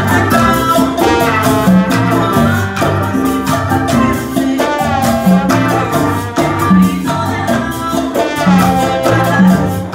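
Live salsa played by a school Latin band: trumpets and trombone with singers over a repeating bass line, keyboard and hand percussion keeping a steady beat.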